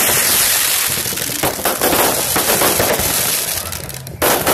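Aerial fireworks bursting overhead in a dense run of rapid pops and bangs. It eases off slightly just before a loud new burst near the end.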